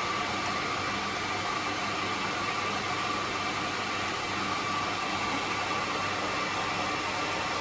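Cooling fans of network equipment running steadily: an even whir with a thin steady whine in it.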